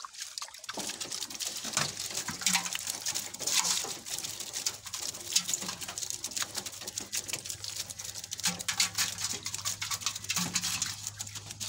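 Live shrimp and small fish flicking and splashing in the shallow water of a tray and net as they are sorted by hand: an irregular patter of small splashes and drips.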